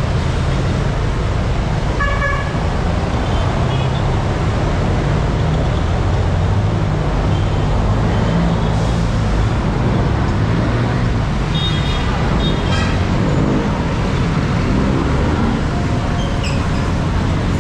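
Busy city street traffic: a steady rumble of jeepney, car and motorcycle engines. Short horn toots sound about two seconds in, again twice around twelve seconds, and once more near the end.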